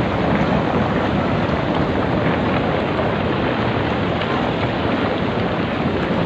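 Muddy floodwater rushing past in a steady, continuous wash of noise.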